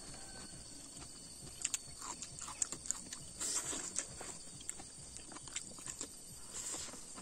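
Close-up sounds of eating with the hand: fingers mixing rice and pork on a banana leaf, then chewing with wet lip smacks, heard as scattered short clicks and squelches.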